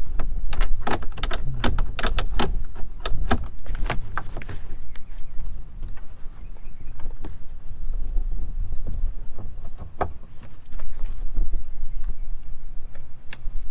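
Clicking and knocking of kayak outfitting parts being handled and fitted inside the boat: rapid clicks for the first four seconds or so, then quieter rubbing with a few single clicks.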